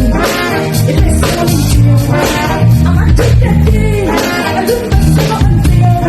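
Live band playing loud amplified music with a strong bass line, drums, guitar and singing.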